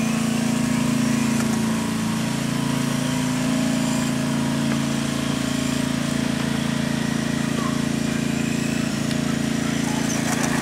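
A steady low engine-like hum, the loudest sound, with faint high whines rising and falling above it from the 540 electric motor of a Tamiya Grasshopper RC car being driven slowly.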